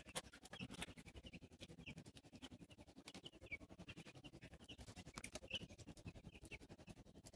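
Faint peeping of a flock of broiler chicks: short, high chirps scattered every half second or so.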